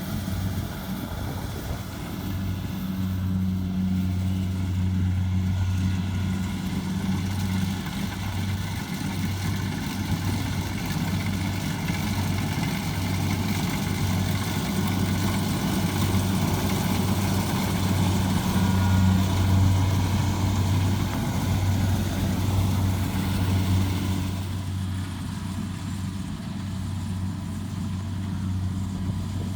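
Kubota DC70 rice combine harvester's diesel engine running steadily, a continuous low drone with mild swings in level.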